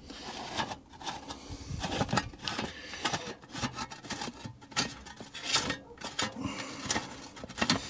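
Irregular scraping, rubbing and light clicking of a spanner and loosened metal parts being worked on a 1930s Ransomes Atlas Mk1 lawnmower, as a freed nut is wound off and a cover comes away from the chain.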